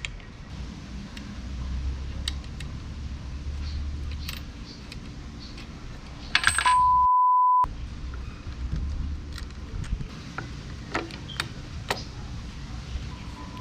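Scattered light clicks and clinks of small parts or hand tools being handled, over a low rumble. About halfway through, a one-second 1 kHz censor bleep replaces all other sound and cuts off sharply.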